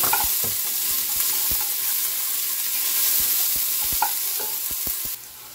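Chopped onion sizzling in hot oil in a metal pressure cooker, with a wooden spatula scraping and knocking against the pot as it is stirred. The sizzle cuts off suddenly near the end.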